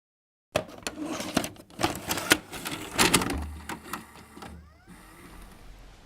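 Rapid mechanical clattering and clicking for about three seconds, then a low hum with a brief sliding tone that fades away.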